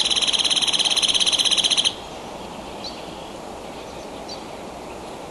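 A strange, loud bird call: a rapid, evenly pulsed buzzing trill that cuts off suddenly about two seconds in, followed by a few faint, short high chirps.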